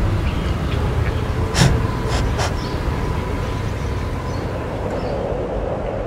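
A coati sniffing and nosing at a camera on the ground: a few sharp knocks against it, the loudest about a second and a half in, over a low outdoor rumble.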